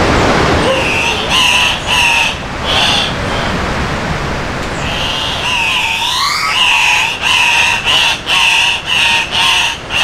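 Male Andean cocks-of-the-rock calling at their lek: a few calls in the first three seconds, a rising call about six seconds in, then a quick run of short calls about two a second. The steady rush of a nearby river runs underneath.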